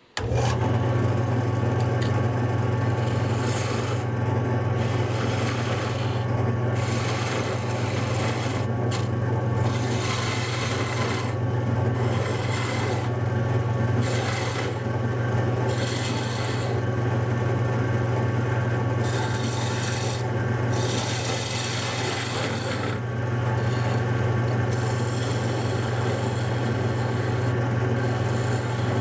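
Wood lathe starting up and running with a steady motor hum while a turning tool cuts a spinning wooden spindle blank, a rough scraping that breaks off briefly several times as the tool is lifted and set back on the wood.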